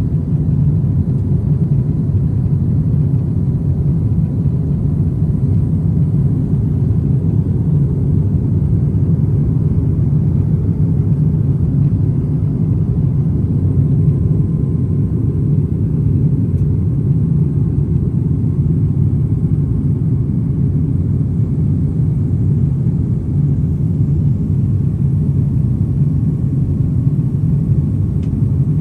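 Airliner cabin noise: a steady low rumble of engines and airflow heard from inside the cabin, with a faint steady whine above it.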